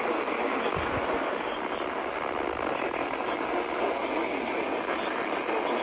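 Steady radio static hiss from a weather radio receiver as the broadcast signal drops out, cutting off the announcer's voice. A brief low thump comes about a second in.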